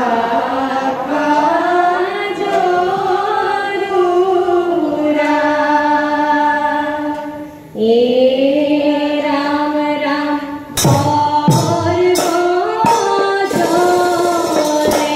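Dihanam: a mixed group of young men and women chanting a devotional song in unison, holding long, slowly bending notes across two phrases. About eleven seconds in, drum and small cymbal strokes join the singing.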